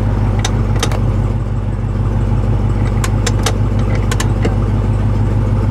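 Supercharged 6.2-litre Hemi V8 of a Dodge Charger SRT Hellcat idling steadily with a deep, even hum, and several short sharp clicks over it.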